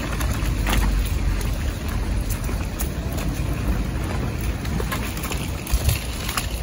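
Wind buffeting the microphone outdoors: a steady low rumble with an even hiss over it.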